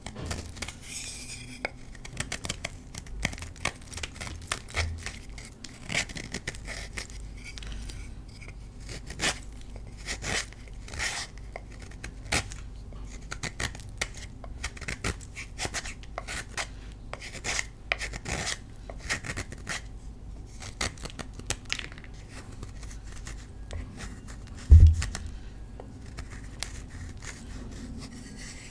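A knife blade shaving thin flakes off a block of Colift gym chalk: a long run of short, crisp, dry scrapes, irregular in pace, with a single low thump near the end.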